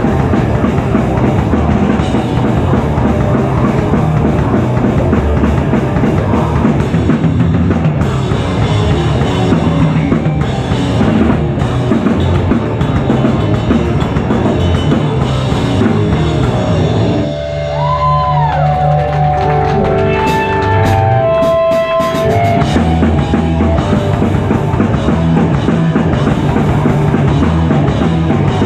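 Live rock band playing loud, with drums, distorted guitar and bass. About two-thirds of the way through, the drums drop out for a few seconds while the guitar plays a bending note, then the full band comes back in.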